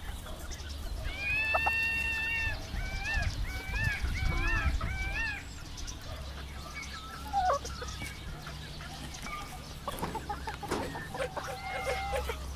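Chickens calling and clucking: one long drawn-out call about a second in, then a quick run of about five short rising-and-falling clucks, with scattered softer clucks and a few more calls near the end.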